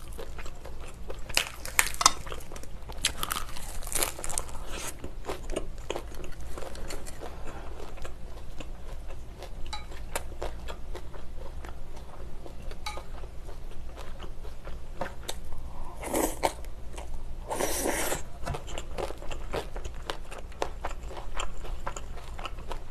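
Close-miked chewing and crunching of a lettuce wrap, with many short crisp crunches, then kimchi being eaten. Two louder, longer noises come about sixteen and eighteen seconds in.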